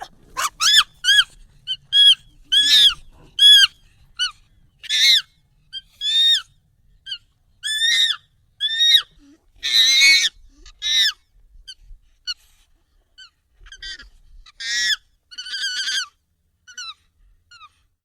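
Monkey calls, sped up and pitched up nightcore-style: a quick run of short, high-pitched cries about two a second, with a louder, harsher screech about ten seconds in. The calls thin out near the end.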